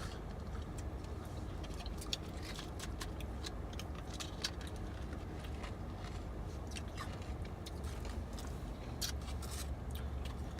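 Shave ice being eaten: scattered small crunches and clicks from biting and the spoon, over a steady low rumble.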